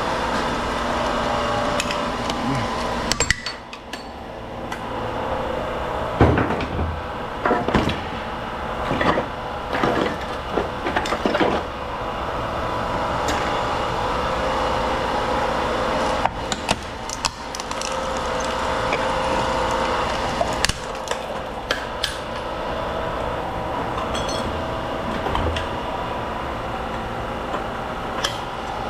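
Scattered metal clanks and knocks, in two clusters roughly a quarter and two-thirds of the way through, over a steady mechanical drone.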